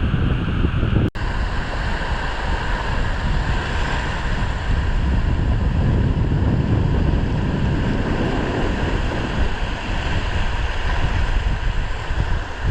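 Wind buffeting the microphone over the steady wash of sea surf on a beach, with a sudden, momentary dropout about a second in.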